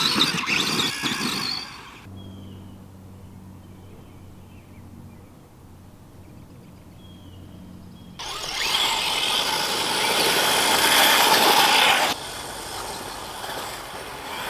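Electric motors and drivetrains of RC rock crawlers whining, the pitch wavering with the throttle, as they climb. This stops about two seconds in, leaving a few seconds of quieter outdoor sound with a low steady hum and a few faint chirps. Then the crawlers' motor whine starts again, loud for about four seconds before easing.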